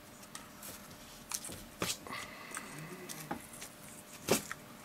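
Side-cutting pliers clicking and snapping against the rusted metal casing of a small washer pump motor as it is pried apart, a few separate sharp clicks with the loudest near the end.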